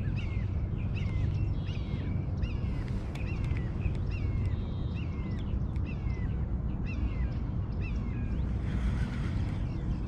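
A bird calling over and over with short, falling chirps, about two a second, that stop near the end. Under it is a steady low wind rumble on the microphone, and a few faint clicks.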